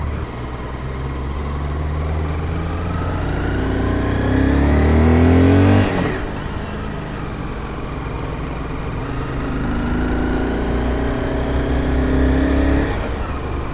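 Motorcycle engine pulling in first gear, its revs rising steadily for several seconds and then dropping suddenly about six seconds in, then rising again and easing off near the end.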